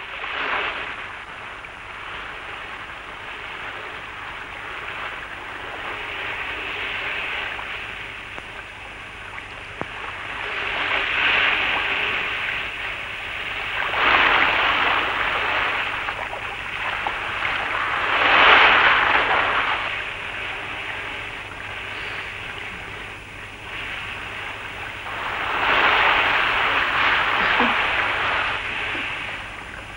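Sea waves breaking on the shore: a continuous wash of surf that swells into louder breakers every few seconds, four big surges in all, the loudest a little past the middle. A steady low hum runs underneath.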